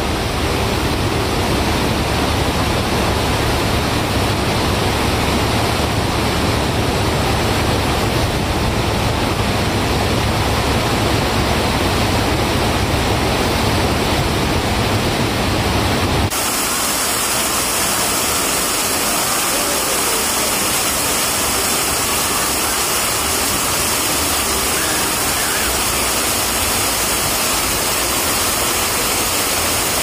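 Whitewater rapids rushing over and between rocks in a mountain stream: a loud, steady rush of water. About sixteen seconds in, the sound suddenly loses its deep rumble and becomes a thinner, hissier rush.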